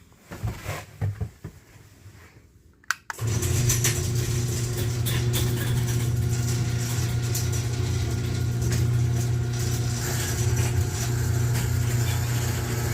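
A few soft knocks and a sharp click, then an electric garage door opener starts suddenly about three seconds in and runs with a steady, loud low hum.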